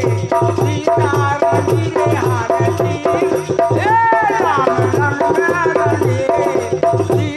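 Indian folk devotional music: a drum keeps a steady beat of about three strokes a second with rattling hand percussion, under a melodic line that bends and slides in pitch, most strongly about four seconds in.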